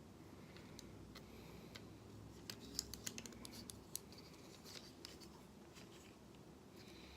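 Faint, scattered clicks of a Transformers Studio Series Voyager Starscream figure's plastic parts and joints being moved while it is transformed back to robot mode, a few in quick succession about two and a half to three seconds in.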